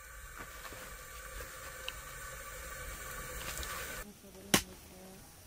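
Wood fire burning in a stove's firebox: a steady hiss with a few small crackles. About four seconds in it gives way to faint children's voices and one sharp, loud snap, the loudest sound here.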